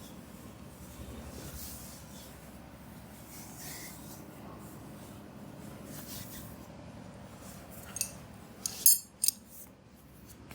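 Hands rubbing and stroking skin in a massage, soft rubbing strokes, then a few sharp, bright clicks in quick succession about eight seconds in.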